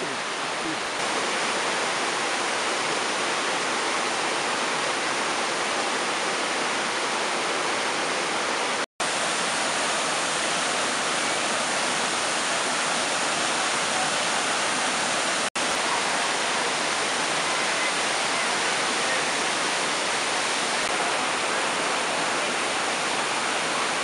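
Steady, even rush of a waterfall, water cascading over boulders. The sound cuts out for an instant twice.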